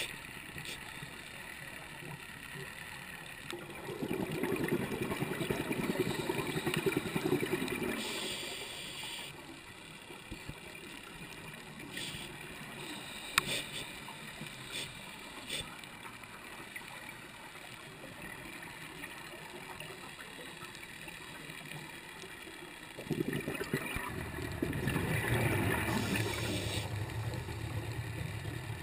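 Underwater sound through a camera housing: a diver's exhaled bubbles from a scuba regulator gurgling twice, a few seconds in and again near the end, over a steady hiss, with a few sharp clicks in between.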